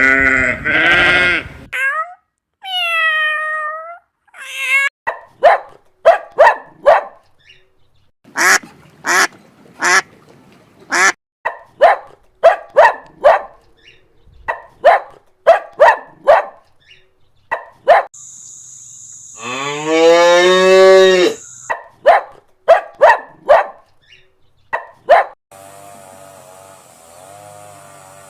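Ducks quacking in a long series of short, loud calls, then a cow mooing once in one long low call about twenty seconds in. A few more short calls follow, and a low steady hum near the end.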